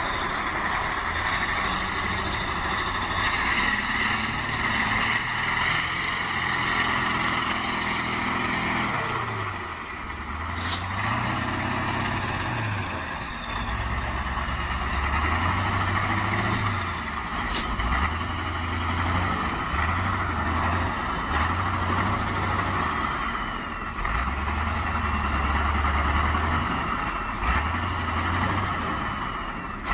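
A large vehicle or machine engine running, its pitch rising and falling again and again as it is revved or loaded, with a steady high whine above it. Two short sharp clicks stand out over it.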